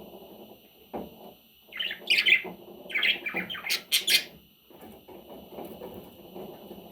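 Budgerigar chirping and chattering: two clusters of sharp, high chirps, about two seconds in and again from about three to four seconds in, over a softer, steady chatter.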